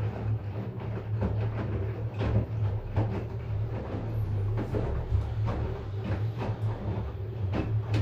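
LG Direct Drive front-loading washing machine in its wash tumble: the drum turns with a steady low motor hum while a small load of wet clothes and water slosh and fall with irregular knocks.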